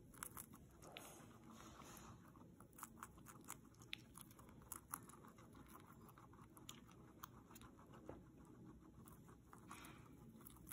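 Guinea pig nibbling a broccoli floret: faint, quick crunchy clicks of its teeth biting and chewing, several a second.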